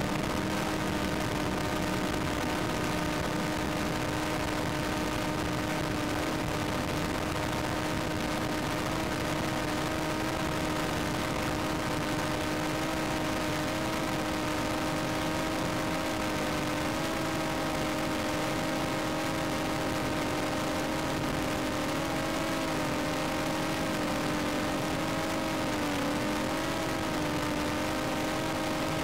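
A steady motor hum at one held pitch over a hiss of noise, its pitch wavering slightly near the end.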